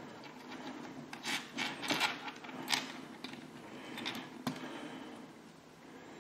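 Small plastic model-kit pieces being handled and pushed onto a thin metal rod by hand: soft rubbing and scraping with a few light clicks, mostly between one and three seconds in and again a little after four seconds.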